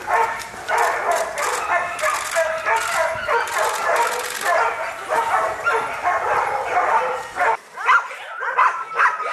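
Several shelter dogs barking at once, a continuous overlapping chorus. About three-quarters of the way in it changes to fewer, sharper rising yelps.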